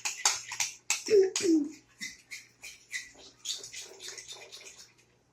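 A spoon stirring sticky glue-and-shaving-foam slime in a pot: a run of wet squelches, clicks and scrapes, with a brief pair of falling pitched sounds about a second in.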